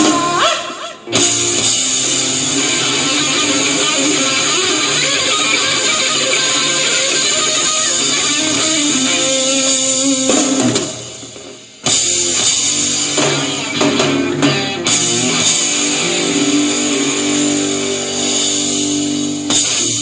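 Rock band playing an instrumental passage: electric guitar with drum kit, breaking off briefly about a second in and again around the middle before starting up again.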